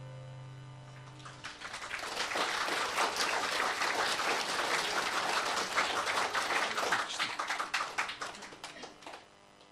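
A last guitar chord rings out, and about a second in an audience starts applauding. The clapping goes on for about eight seconds and dies away near the end.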